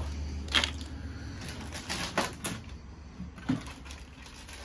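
Thin clear plastic packaging rustling and crinkling in the hands as it is handled and opened, in a few separate crackles: about half a second in, around two seconds in and once more near three and a half seconds.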